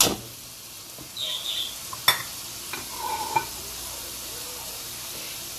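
Mashed carrot mixture sizzling steadily in a nonstick frying pan while a metal spoon stirs it, with sharp knocks of the utensil against the pan at the start and again about two seconds in.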